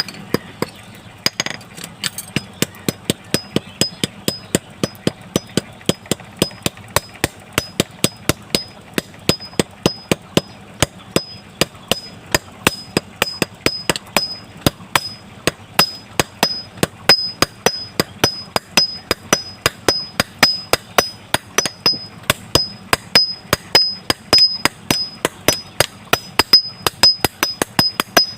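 Blacksmith's hammer striking metal on an anvil in a steady rhythm, about three blows a second, each blow with a high ringing ping.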